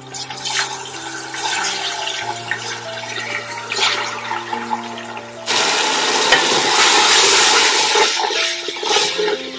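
Water poured into a pot of hot oil with fried onions and spices, hissing and sizzling; the sizzle gets much louder about halfway through and eases off near the end, as the masala starts to cook in the water.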